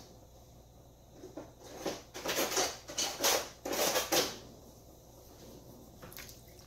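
A salt shaker shaken hard over the pot: a run of quick, gritty rattling shakes lasting about three seconds, starting about a second and a half in. Near the end a wooden spoon gives a few faint scrapes in the pot.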